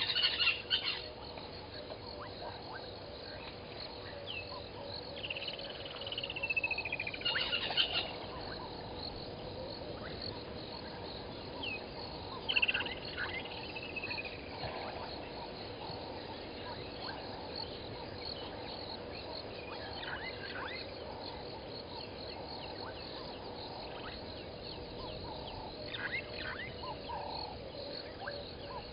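Evening bushveld ambience at a waterhole: a steady chorus of insects and frogs with a faint steady hum, broken by a few bird calls. Two of those calls are longer, falling whistles, about five and twelve seconds in.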